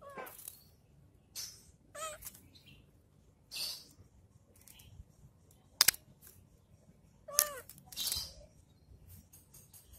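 Two cats sparring: a few short, bending cries and brief hissing bursts, with one sharp click near the middle as the loudest sound.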